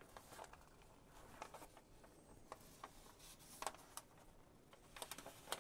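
Faint rustling and small crackles of wet watercolor paper being lifted off the carrageenan size in a metal tray, with a few sharper clicks about two thirds of the way in and near the end.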